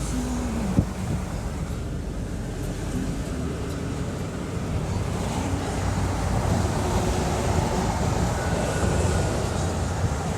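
Steady vehicle rumble with wind buffeting the microphone, growing a little louder in the second half, and a single sharp click about a second in.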